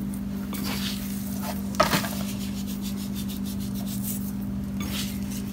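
Hands rubbing a coarse salt, black pepper and bay leaf mix into split raw mackerel on a plastic cutting board: soft scratchy rubbing in short spells, with one sharp tap a little under two seconds in. A steady low hum runs underneath.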